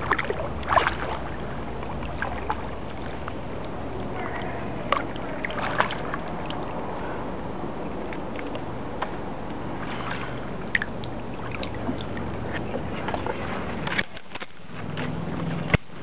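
Kayak paddling: the paddle dipping and splashing, with scattered sharp knocks and drips over a steady wash of water and wind noise. The sound drops out briefly near the end.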